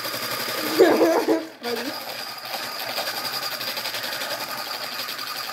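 Electric hand mixer running steadily with a high motor whine as it beats eggs. It cuts out for a moment about a second and a half in, then starts again.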